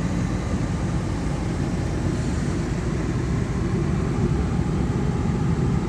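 Steady low rumble of a car engine running, heard from inside the cabin.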